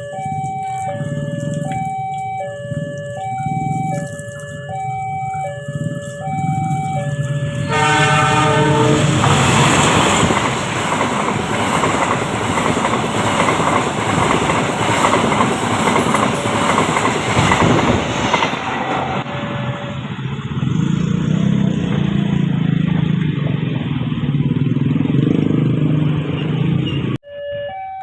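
Railway level-crossing alarm sounding two alternating tones, then a train horn blast about eight seconds in. The train then passes for about ten seconds with a loud rush and wheel clatter. After the train, the alarm is gone and road vehicle engines run; the two-tone alarm returns at the very end.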